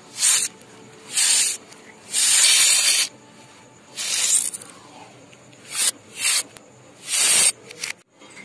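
Aerosol foam spray can spraying in short hissing bursts, about seven of them, the longest lasting nearly a second.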